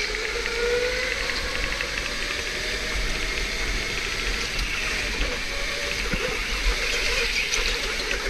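Electric go-kart motor whining, its pitch sliding up and down with speed, over a steady hiss, heard on board the kart.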